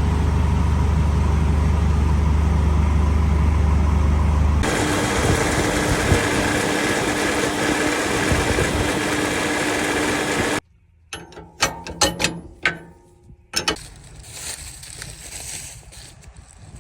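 Heavy corn-chopping farm machinery running loudly and steadily. The sound changes abruptly about four and a half seconds in, then cuts off suddenly after about ten seconds, leaving a quieter stretch with scattered clicks and knocks.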